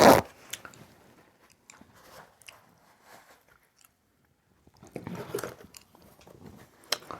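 Close-miked chewing of sushi: soft mouth clicks and wet smacks, faint for a while, then busier a little past the middle. A short loud noise right at the start, and a sharp click near the end.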